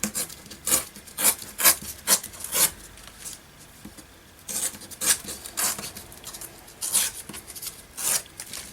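Paper being torn by hand along an edge in a run of short rips, in three spells with brief pauses between.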